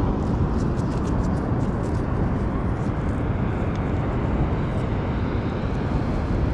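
Steady rushing noise of surf and wind, with a few faint clicks from hands working a hook out of a small shark's mouth.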